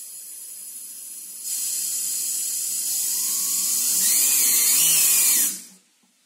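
Compressed air hissing as it drives a small 3D-printed air turbine spinning at high speed. The hiss grows louder about a second and a half in, a rising whine joins it near the end, and then the air cuts off suddenly.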